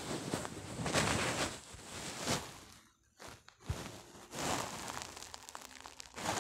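Irregular rustling noise in swells of about a second, with a few faint clicks between them.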